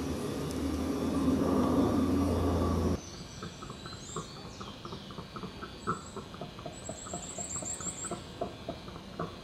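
A loud, rough roar for about three seconds cuts off abruptly. It gives way to birds calling: rapid high-pitched trills and a steady string of short chirps.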